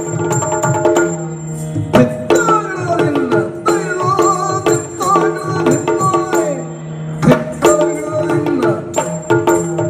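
Live Yakshagana ensemble music: a steady drone under rapid hand-drum strokes, with hard strokes about two seconds and about seven seconds in. A high ringing metallic tone runs alongside, and a wavering melodic line rises and falls in the middle.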